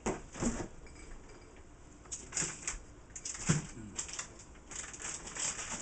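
Faint kitchen handling sounds: scattered light clicks and taps, with one louder knock about three and a half seconds in, over patches of faint hiss that come and go.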